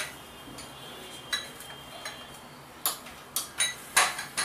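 A steel spoon clinking against small glass bowls on a tray: about seven separate light clinks, some with a brief ring, the loudest near the end.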